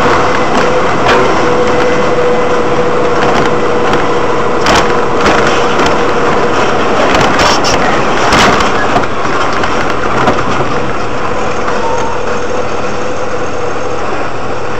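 Loud engine and road noise heard from inside a moving vehicle's cab, with a steady whine that drops out for a second just past the middle and occasional knocks and rattles.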